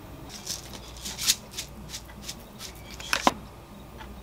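Wooden spatula scraping and tapping fried rice from a frying pan into a ceramic pot: a run of short scrapes and clicks, with two louder knocks, about a second in and a little after three seconds, the second ringing briefly.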